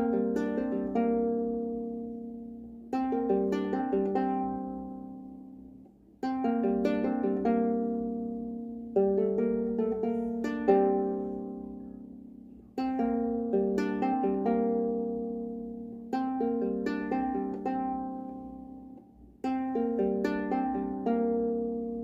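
Trossingen lyre played solo: plucked strings in phrases, each phrase opening with a firm pluck of several notes that ring and fade away, a new phrase every three seconds or so.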